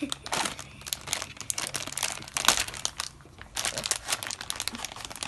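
Plastic surprise-bag packet crinkling as it is handled and pulled at to open it, a dense run of sharp crackles with a brief lull about three seconds in.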